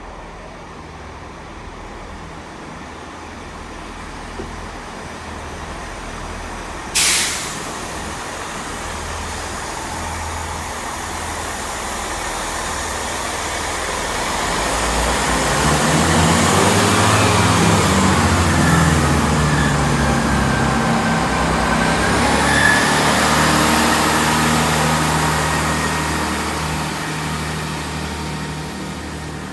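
A diesel multiple unit train moving through the station: its engine drone builds from about halfway through, is loudest for several seconds, then eases off, with a high squeal over it near the peak. A single sharp clack about seven seconds in.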